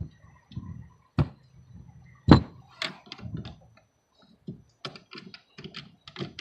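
Clicks and knocks of hand tools and parts being handled during car battery work, with one loud thunk about two seconds in and a quick run of clicks near the end.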